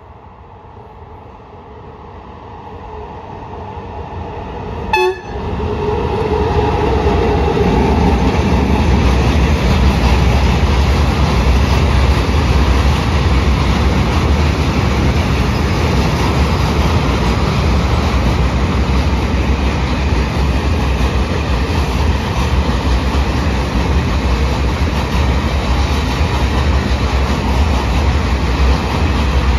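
Freight train passing close by. The rumble builds as it approaches, with a short sharp sound about five seconds in and a brief tone after it. Then comes the steady, loud rolling noise of a long string of open freight wagons going past.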